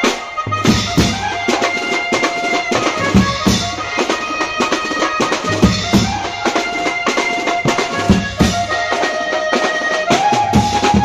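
Street band playing: a drum kit's toms, snare and cymbals struck in fast, driving patterns under a melody of long held notes from wind instruments.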